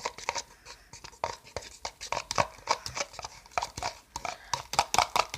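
A spoon stirring fluffy slime mixture of glue, shaving cream and borax solution in a bowl: irregular wet clicks and scrapes, several a second. The borax activator has just gone in, and the mixture is thickening into slime.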